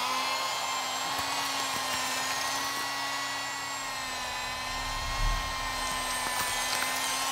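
Powered bone saw starting up and running with a steady high whine as it cuts open the chest down the middle of the sternum.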